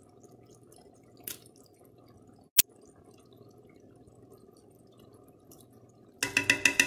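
A pot of curried eggplant simmering faintly with small bubbling pops, a metal spoon clinking sharply against the pot about two and a half seconds in. Near the end comes a quick run of ringing taps, the spoon knocked against the pot to drop the tomato puree.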